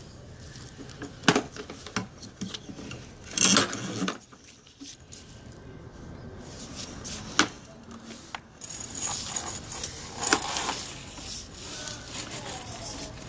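Sewer inspection camera's push cable being fed through a hole into a sewer line, with scraping and a few sharp knocks against the pipe. A steady hiss comes in about two-thirds of the way through.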